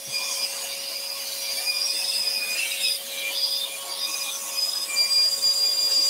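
Electric scroll saw running, its fine reciprocating blade cutting through thin wood: a steady hum with a thin high whine that comes and goes as the work is fed.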